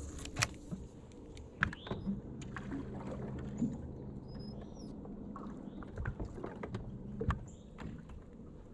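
Scattered knocks and clicks of fishing gear being handled in a small boat, with a faint low hum that comes in about two seconds in and fades near the end.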